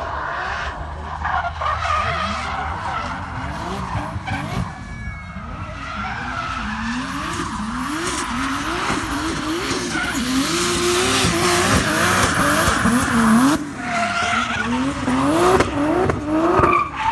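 Volvo 940 with a swapped-in turbocharged Toyota 2JZ straight-six, drifting: the engine revs sweep up and drop again over and over while the spinning rear tyres screech. It grows louder as the car slides nearer.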